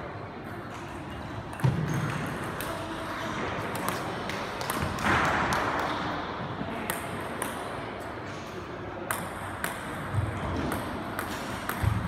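Celluloid-style table tennis ball clicking sharply off bats and the table, in a string of separate hits with a few low thuds among them.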